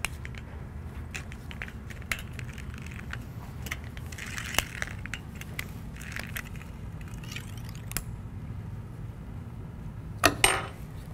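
A cover strip installation tool is pushed along a steel linear guide rail, snapping the sharp-edged metal cover strip into place with scattered clicks and scrapes. A few loud sharp clacks come near the end, over a steady low hum.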